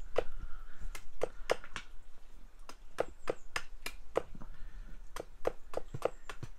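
Axe chopping a point onto the end of a wooden stake: a run of sharp, crisp blows, two or three a second, each with a short woody ring.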